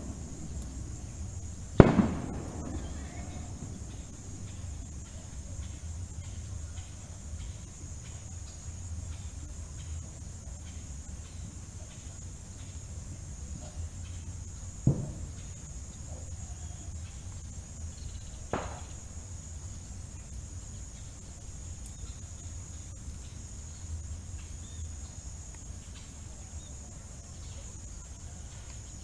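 A steady high insect trill over a low rumble, broken by three sharp bangs: the loudest about two seconds in, two weaker ones about fifteen and eighteen seconds in.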